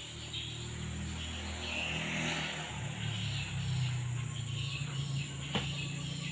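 A cat snoring: a low, steady rumble with a fine fluttering texture, with crickets chirping behind it and a single sharp click about five and a half seconds in.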